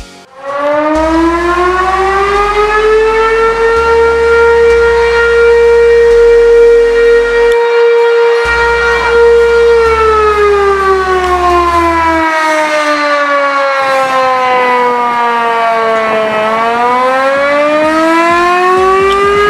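Loud fire station alarm siren winding up to a steady wail over about five seconds, holding it, then winding down about ten seconds in and starting to rise again near the end.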